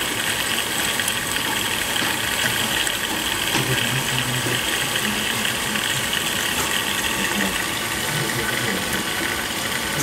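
Hoover HTI 247 top-loading washing machine early in a cottons 60 °C wash, with a steady hiss of water running into the machine.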